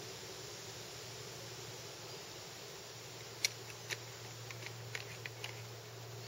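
Plastic drinking bottle and backpack being handled as the bottle is put away. A sharp click a little past halfway is followed by a run of small clicks and ticks, over a steady background hiss.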